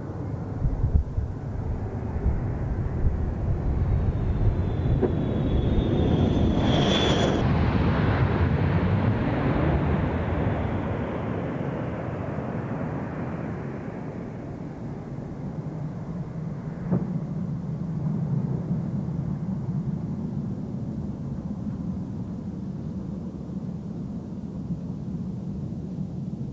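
The jet engines of a B-1B Lancer rumbling as the bomber passes low on landing approach, with a high whine sliding down in pitch and the sound at its loudest about six to eight seconds in as it goes by. The sound then settles to a steadier, quieter low jet rumble.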